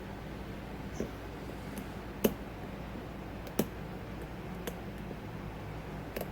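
Pins clicking in a Corbin pin-tumbler padlock as it is picked with a pick and light tension: a handful of sharp, irregularly spaced clicks, the loudest a little over two seconds in.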